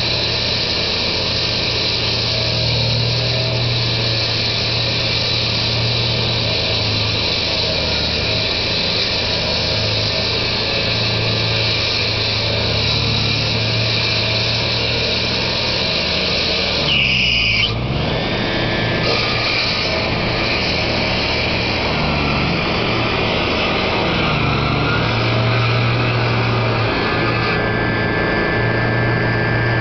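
Motor-driven power saw running and cutting steadily. About seventeen seconds in, its note briefly drops and sweeps back up before settling again.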